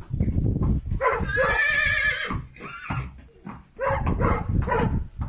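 Shetland pony whinnying, one wavering call of about a second and a half starting about a second in, with a low rumble beneath it at the start.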